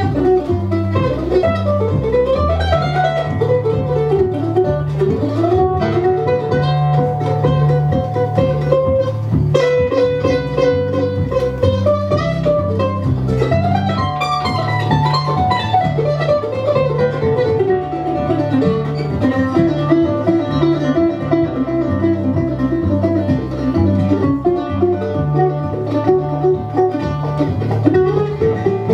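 Bluegrass band playing an instrumental break on mandolin, acoustic guitar and upright bass, with a melody line over a bass line that changes note about twice a second.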